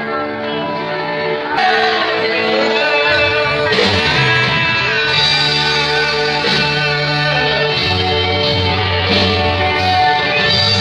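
Music with guitar over a bass line of held notes that change every couple of seconds.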